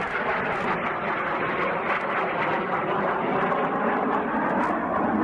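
Airplane in flight: a steady rushing engine drone.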